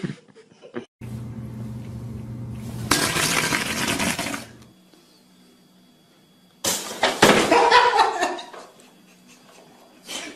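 A pop-up toaster springs its toast up with a sharp click, followed at once by a loud clatter as a cushioned stool is knocked over. Earlier there is a low hum with a loud burst of hiss.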